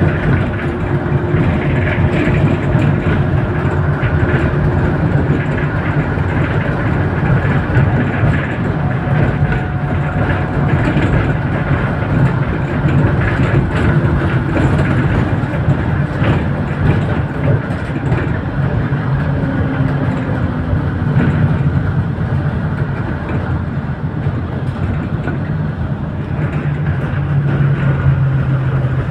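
Bus engine running and tyre and road noise, heard from inside the moving bus's cabin, a steady drone whose engine note shifts a few times and grows stronger near the end.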